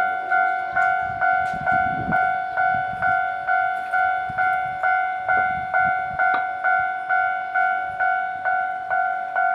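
Japanese railway level-crossing alarm sounding, a two-tone electronic bell striking about twice a second, each strike dying away fast. A low rumble runs beneath it at times.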